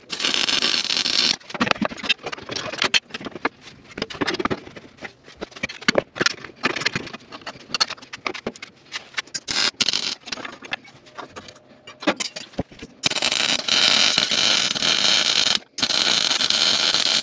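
Wire-feed welder crackling and sputtering as it welds the steel frame rail. The first part is a run of about a second and a half, then short, broken tack welds, then two longer continuous runs near the end with a brief stop between them.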